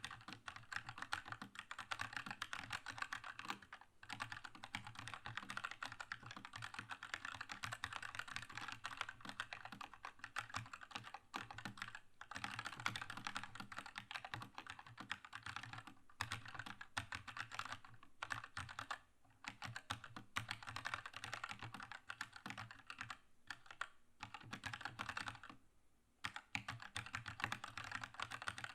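Continuous fast typing on a Keychron K2 mechanical keyboard with red linear switches, rapid key clacks with short pauses about 4, 12, 19 and 26 seconds in.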